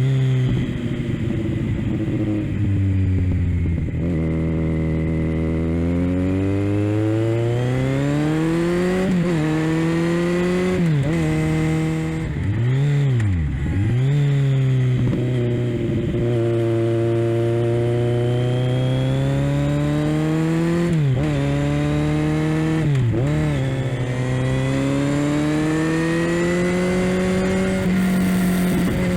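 Kawasaki Z900 inline-four engine through a Leo Vince LV-10 Full Black exhaust, its pitch climbing steadily and dropping back several times as it pulls through the revs and changes gear. A few sharp rev blips come around the middle.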